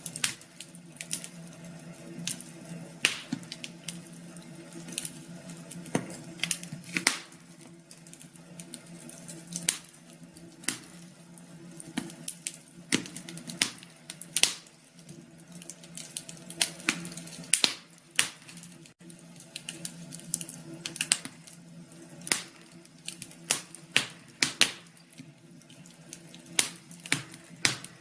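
Wood fire crackling, with sharp irregular pops and snaps several times a second over a steady low hum.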